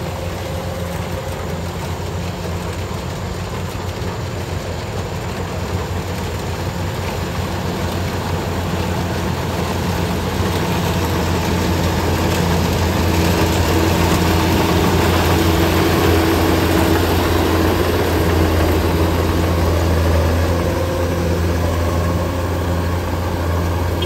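Kubota DC105X rice combine harvester running under load as it cuts and threshes rice: a steady low diesel engine drone under a broad mechanical rush, growing louder as it passes close and loudest a little past the middle.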